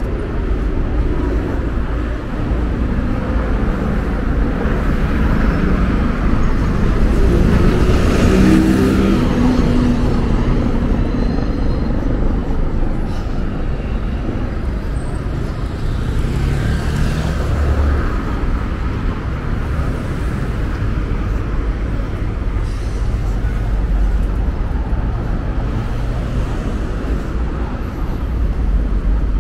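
Road traffic on a multi-lane city avenue: a steady wash of car engines and tyres, with a louder vehicle passing about eight seconds in and another around seventeen seconds.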